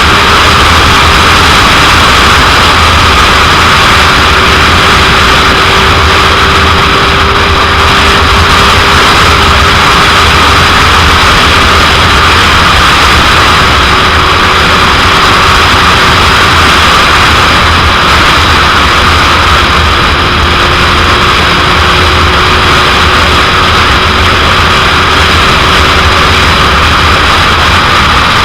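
Heavy wind noise buffeting the microphone, nearly covering a 2001 Suzuki GSX-R750's inline-four engine holding a steady note underneath.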